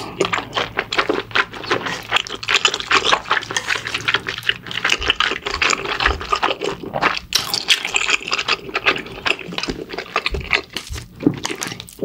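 Wide glass noodles in mala sauce being slurped and chewed: a dense, steady run of short, sharp mouth clicks.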